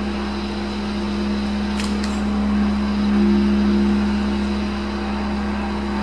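A steady low drone held on one pitch, with an overtone above it that swells slightly about three seconds in, and a faint click about two seconds in.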